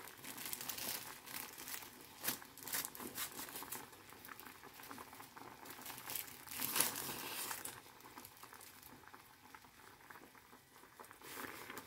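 Sardine broth bubbling at a boil in a stainless steel saucepan, with irregular soft crackles.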